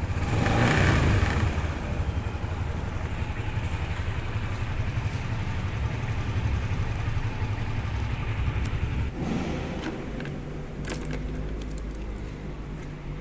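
Yamaha LC135 motorcycle's single-cylinder four-stroke engine idling, with one short rev about a second in before settling back to a steady idle. About nine seconds in the engine note changes and the sound eases slightly.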